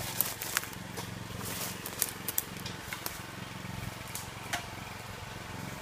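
Horse-drawn logging trailer with a hydraulic log-loader crane rolling through the woods: a small engine hums steadily under scattered sharp clanks and cracking twigs.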